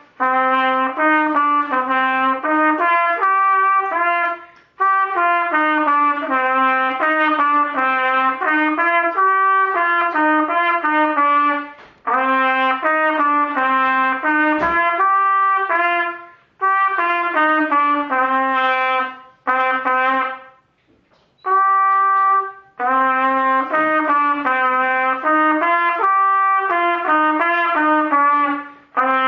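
Solo trumpet playing a simple melody unaccompanied: phrases of separate notes in a narrow middle range, with short breaks for breath between phrases and one longer pause about two-thirds of the way through.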